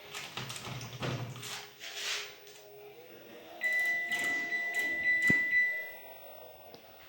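Handling and clicking sounds, then an electronic buzzer gives one long, steady, high beep lasting about two seconds, with a sharp knock partway through. The buzzer is plausibly a washing machine's control panel sounding as its buttons are pressed.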